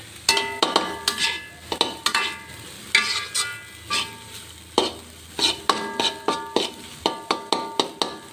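Metal spatula scraping and knocking against a wok while stirring a sardine and onion filling, each stroke giving a short metallic ring, several strokes a second in uneven bursts.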